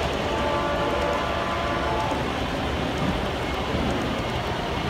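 HO scale model intermodal train rolling past close by: a steady rumble of its wheels running along the track.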